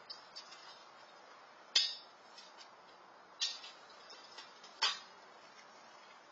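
A squirrel feeding at a small food dish, making sharp clinks and clicks against it: three louder clinks about a second and a half apart, with fainter clicks between, over a faint steady hiss.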